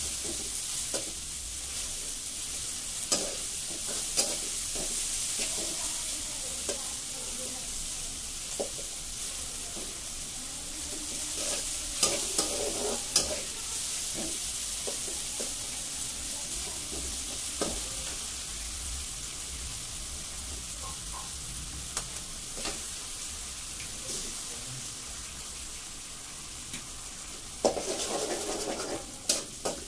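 Chopped tomatoes sizzling in oil in a two-handled metal kadai while a metal spatula stirs and scrapes them: a steady frying hiss with scattered clicks of the spatula against the pan, and a denser run of scraping and taps near the end.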